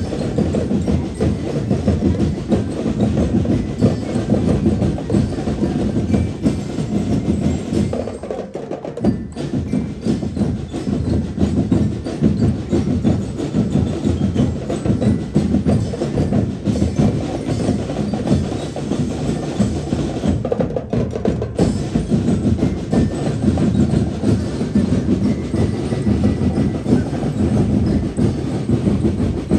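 Drum and lyre corps playing, with the marching drums beating a steady, dense rhythm.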